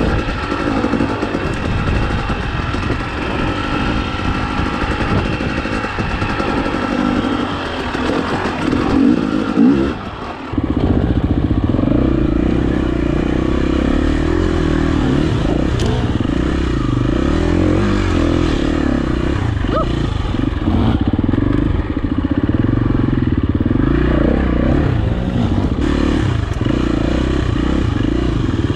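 KTM enduro dirt bike engine running in low gear over rocky singletrack, the revs rising and falling, with clatter of the bike over rock. The sound dips briefly about ten seconds in, then the engine runs on more evenly.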